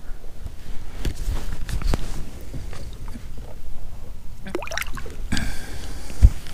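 Water splashing and dripping as a small smallmouth bass is lowered by hand into the water beside a kayak and released. There is a brief cluster of splashes about four and a half seconds in, and a single dull thump near the end.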